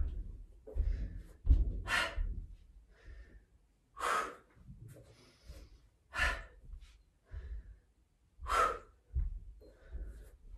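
A woman breathing hard from exertion: forceful, noisy exhales about every two seconds, as in a high-intensity interval round, with a few dull low thumps among them.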